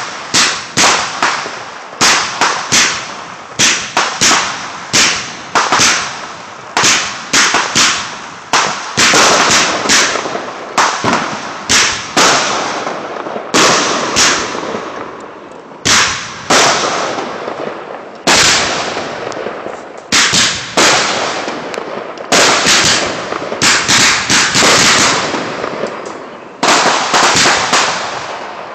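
Aerial fireworks shells bursting one after another, about two sharp bangs a second, each trailing off in an echo.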